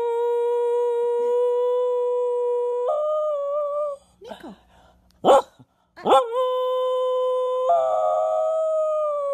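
Dog howling: a long held howl that steps up in pitch about three seconds in, a pause with a short sharp sound, then a second long howl starting with a quick rise and wavering higher near the end.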